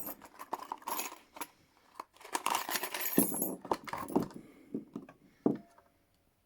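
Small metal objects clinking and rattling against each other and the tabletop as hands rummage through them, in irregular clusters that are busiest about two to four seconds in.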